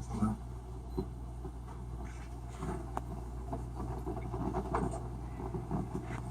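Room tone: a steady low hum with faint rustling and a few small knocks and clicks.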